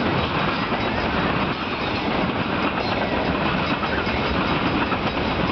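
Iowa Interstate freight train's loaded tank cars rolling past at speed, a steady loud noise of steel wheels running on the rails.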